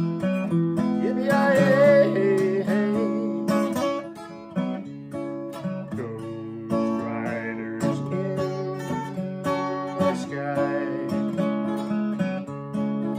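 Steel-string acoustic guitar strummed in a steady rhythm, with a man's singing voice holding long wavering notes over it in the first few seconds.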